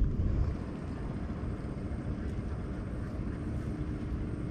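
Wind rumbling on the microphone over open water, a steady low noise. A faint steady hum comes in about three seconds in.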